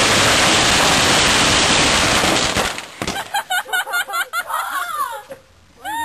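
A 5,000-pack string of firecrackers, still rolled up, going off in one dense, continuous crackle that stops abruptly about two and a half seconds in. People's voices follow.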